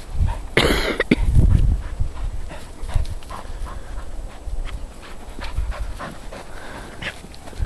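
Springer spaniel panting as she runs about in snow, with footsteps crunching in snow. There is a loud scuffing burst about half a second in.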